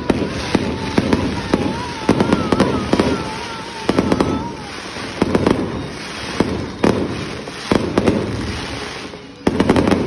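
Fireworks display: aerial shells bursting in quick succession, a dense run of sharp bangs, with a tight cluster of bangs near the end. A wavering whistling tone runs through the first four seconds or so.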